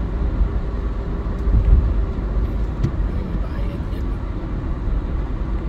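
Steady low road and engine rumble of a car cruising on an expressway, heard from inside the cabin, with a couple of faint clicks.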